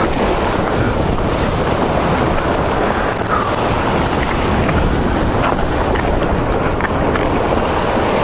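Strong wind buffeting the microphone over surf washing against the jetty: a steady, loud rush with no breaks.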